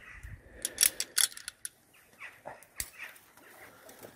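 Sharp metallic clicks and clinks of climbing rope-rigging hardware (carabiners and a pulley block) being handled while a rope pulley system is set up. There is a cluster of clicks about a second in and a single click near three seconds.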